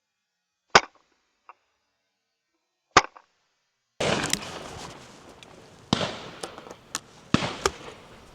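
Shotgun shots at driven game birds: two loud sharp reports a couple of seconds apart, then, over outdoor background noise from about four seconds in, several more shots, some fainter as from guns further down the line.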